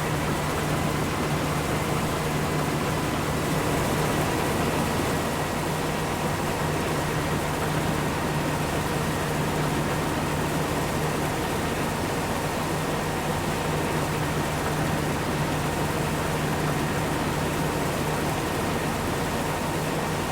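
Farm machinery running steadily: an even engine drone with a constant high whine over a broad hiss.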